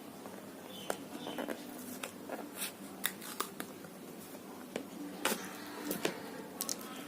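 Hands opening a smartphone's cardboard retail box and handling the packaging inside: scattered light clicks, scrapes and rustles, about a dozen over several seconds.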